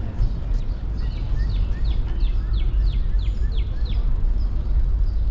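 A songbird singing a run of about nine quick high notes, each slurring downward, about three a second, over a steady low rumble.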